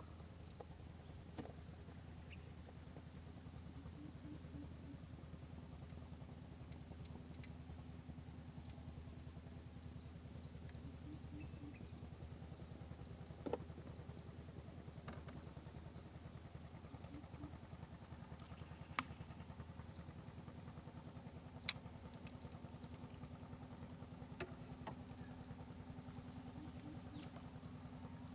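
A steady high-pitched insect drone over a low, steady motor-like hum, with a few sharp clicks in the second half.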